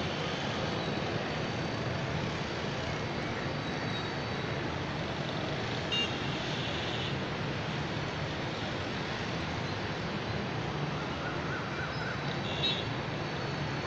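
Steady distant city road-traffic noise, with short high-pitched beeps about six seconds in and again near the end.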